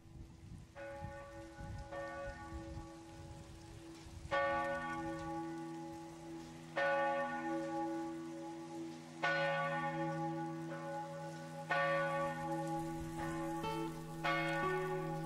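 Church bell ringing: slow, separate strikes, each ringing on with a long decay over a steady low hum. It starts faint, and from about four seconds in the louder strikes come roughly every two and a half seconds, with softer strokes between them.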